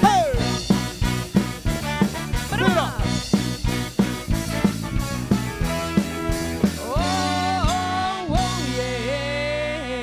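Live ska band with a horn section of trombone, trumpet and saxophone, plus electric guitar and drums, playing to a steady beat. For the last few seconds the band holds long notes that bend in pitch and settles on a final sustained chord, ending the song.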